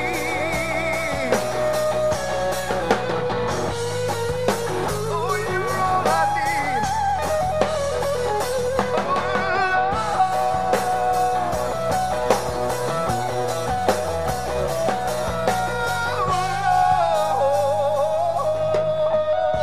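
Live band music: a man and a woman singing into microphones over electric guitars, bass and a drum kit, with a steady beat.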